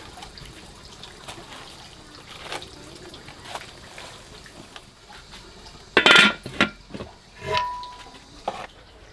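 Water trickling and splashing, then a run of loud clattering knocks about six seconds in, one with a brief ring.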